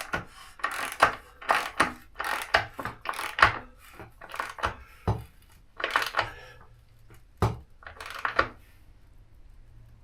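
Metal hand tools clinking and knocking irregularly, one or two strikes a second, as a motorcycle's rear wheel fastening is snugged down by hand after the chain slack is set; the strikes stop near the end.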